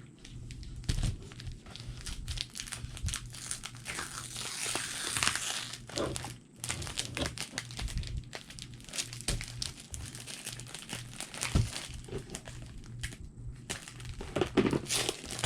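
Packaging being handled and unwrapped: plastic and paper crinkling and rustling, with irregular small crackles and snaps.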